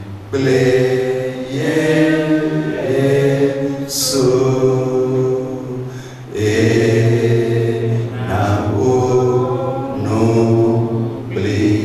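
A man singing solo into a handheld microphone, a slow chant-like melody in long held notes, with a short break for breath about six seconds in.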